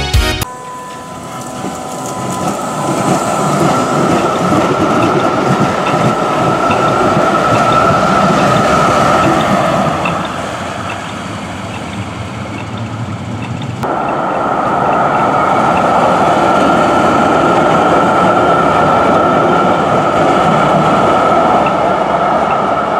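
Duewag GT10 NC-DU Stadtbahn tram with a thyristor chopper and DC series-wound traction motors running past, its chopper giving a steady high whine over the wheel and rail noise. The whine fades about ten seconds in and comes back suddenly at about fourteen seconds with a second tram of the same type.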